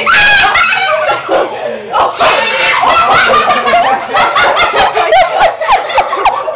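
People laughing hard and loudly, in quick breathy bursts and high-pitched squeals.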